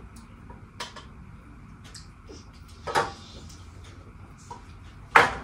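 Spoons clicking and scraping against bowls during eating: scattered light clicks, with a sharper knock about three seconds in and a louder one near the end.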